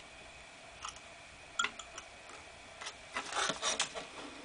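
Faint handling noise: a few scattered small clicks and rubs, with a denser cluster of them in the last second or so. No stepper motor is running.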